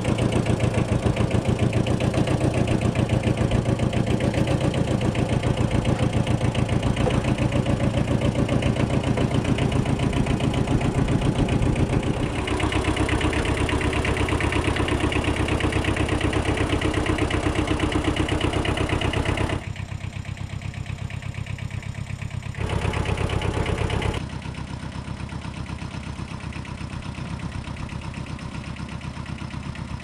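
Kubota B5100E sub-compact tractor's diesel engine running steadily at idle. Its level steps down about twenty seconds in, comes back briefly, and drops again.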